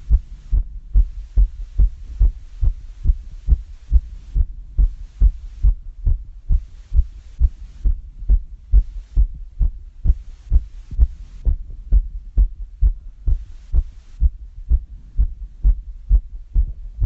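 A human heart beating fast after exercise (climbing up and down stairs), heard as a steady, unbroken run of low lub-dub thumps.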